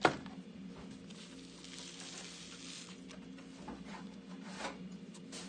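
A single sharp knock right at the start, then quiet handling of foil trading-card packs on a desk mat: soft rustling and a few light taps over a low steady hum.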